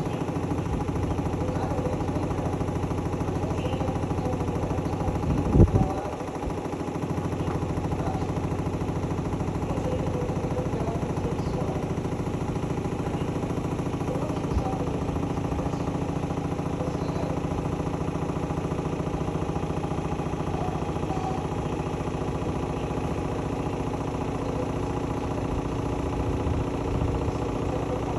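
Hotpoint-Ariston Aqualtis AQXGF 149 S washing machine running steadily, its motor giving a constant hum made of several steady tones. A single thump sounds about five and a half seconds in.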